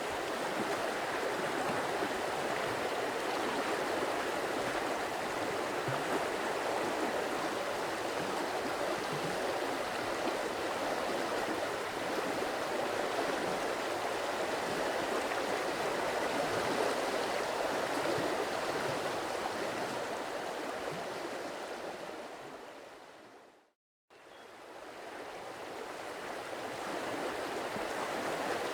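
Running water of a stream, a steady rushing flow. About 22 seconds in it fades out to a moment of silence, then fades back in.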